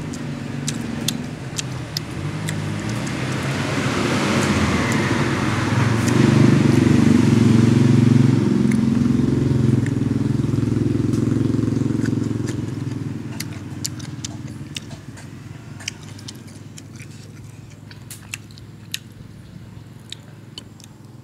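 A motor vehicle passes close by: its engine noise swells over several seconds and then fades away. Afterwards come small clicks and smacks of eating, as fish and shellfish are picked apart by hand and chewed.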